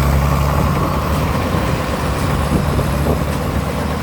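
TAMCO rice combine harvester with a six-cylinder 6HK diesel engine running steadily under load while harvesting, a low engine hum with the noise of the machine's working parts.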